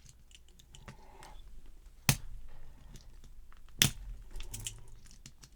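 Small metal clicks and scrapes from tools working at a padlock's retaining clip, with two sharp snaps, about two seconds in and nearly four seconds in.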